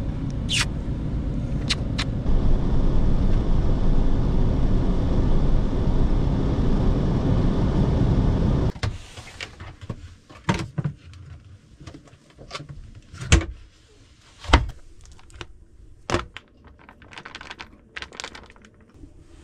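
Steady low road and engine rumble inside a van's cabin while driving, which stops abruptly about nine seconds in. After it, a few scattered sharp knocks and clicks, the loudest two close together near the middle.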